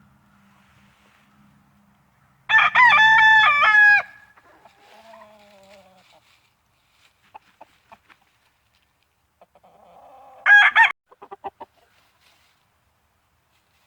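A rooster crows loudly once, a call about a second and a half long, followed by a fainter falling call. Near the end comes a short loud call and a quick run of clucks.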